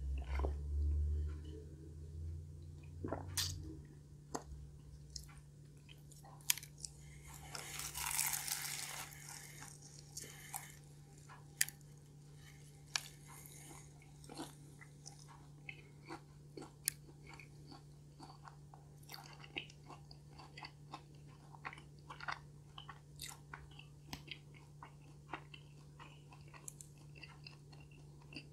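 Chewing and biting of a crispy pastry hazelnut cream-cheese tart, with many small crunches and mouth clicks throughout and a louder crunchy stretch about eight seconds in. A low bump and rumble at the start comes as a drink can is set down. A steady low hum runs underneath.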